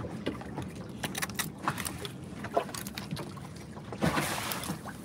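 Fillet knife working through fish flesh against the carcass on a wooden deck: faint scattered scrapes and clicks, with a soft rush of noise about four seconds in.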